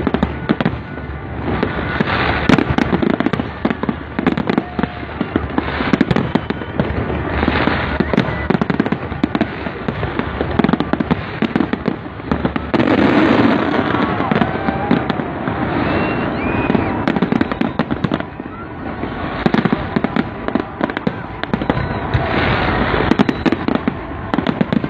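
Fireworks display: shells bursting and crackling in rapid, continuous succession, over the voices of a watching crowd.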